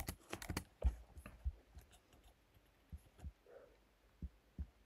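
Scattered keystrokes and clicks on a computer keyboard: a quick run of taps in the first second and a half, then a few isolated clicks.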